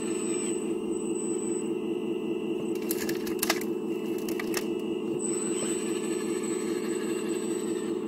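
Rocks clatter into the steel bed of a model dump truck as an RC hydraulic excavator empties its bucket: a short run of sharp knocks from about three seconds in, lasting a second and a half. A steady motor hum runs underneath throughout.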